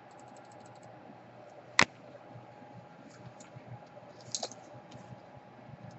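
Small clicks and taps from handling laptop parts and tools during a DC power jack repair: a quick run of faint ticks at the start, one sharp click a little under two seconds in, and a few more clicks later, over a faint steady hum.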